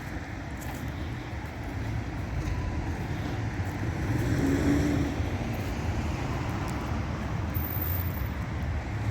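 A moving vehicle's steady low rumble that swells a little about four to five seconds in.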